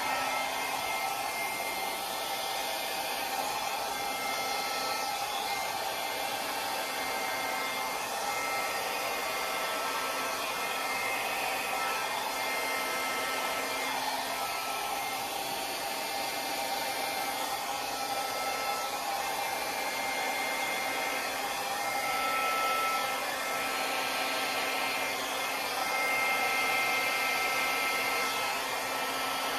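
Small handheld electric hair dryer running steadily, its air stream aimed down onto the canvas to push wet acrylic paint in a Dutch pour, with a faint steady motor whine over the rush of air.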